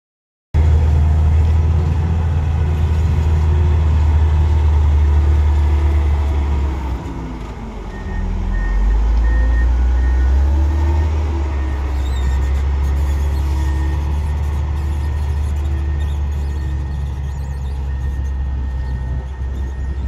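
Komatsu GD535 motor grader's diesel engine running under load as the blade cuts soil: a deep, steady rumble. A little over a third of the way in it dips, its pitch falling and then climbing back.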